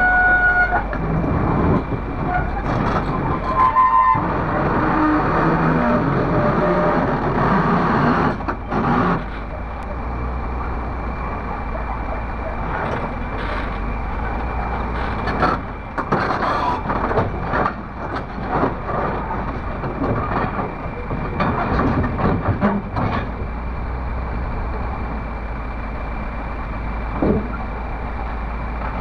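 Komatsu PC300 hydraulic excavator's diesel engine running under load as the machine moves its boom and shifts on a steel trailer deck, with repeated clanks and knocks of steel tracks and the boom over a steady hum.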